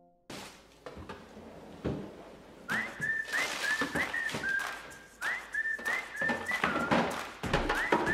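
A person whistling a tune, a run of short notes that each scoop upward, starting a few seconds in. Under it, the rustle and knock of frozen packages being handled in a plastic freezer drawer.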